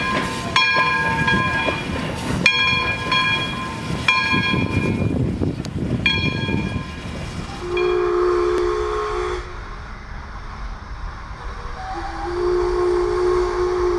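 Essex Terminal Railway #9, an 0-6-0 steam locomotive, working past with its bell ringing about once every one and a half to two seconds over the noise of the engine. Then its steam whistle sounds two held blasts, each about two seconds long, one near the middle and one near the end.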